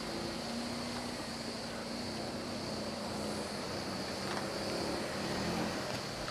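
Steady open-air noise with the low hum of a boat engine running and a constant high-pitched hiss.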